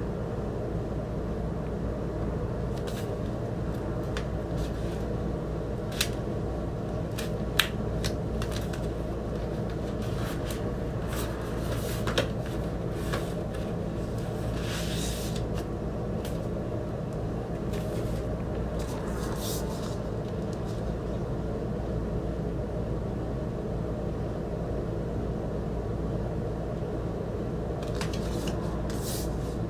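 Rustling, crinkling and light clicks from handling a vinyl double LP's cardboard jacket, plastic wrap and paper lyric sleeves, scattered through the first two-thirds and again near the end. A steady low hum runs under it all.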